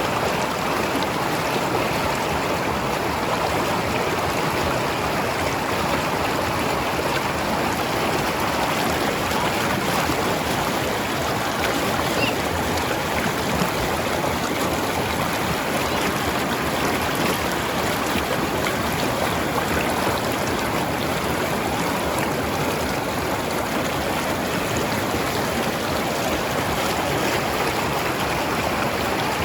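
Mountain river rushing and gurgling over rocks: a steady, even flow of water.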